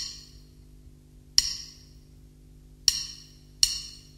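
Four sharp metallic clicks, each with a short high ringing tail and spaced unevenly over a few seconds, over a faint low steady drone: sound design for a trailer's opening.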